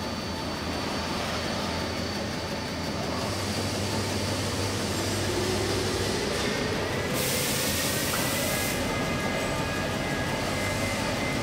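Suzuki NAS-140CS sample warping machine running, its large warping drum turning with a steady mechanical whir. A whine rises in pitch from about four to seven seconds in, and a burst of hiss lasts about a second and a half a little past seven seconds.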